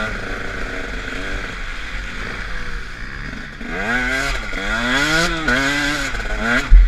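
KTM 125 SX two-stroke single-cylinder engine under way, pulling at a fairly steady pitch, then from about four seconds in revving up and down in several quick rises and falls. A short, loud, low thump comes near the end.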